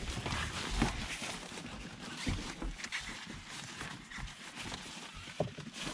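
Collapsible car sunshade being handled: its fabric and aluminium-foil sheet rustling and crinkling as it is opened out and pressed against the windshield, with scattered light knocks and a sharper tap near the end.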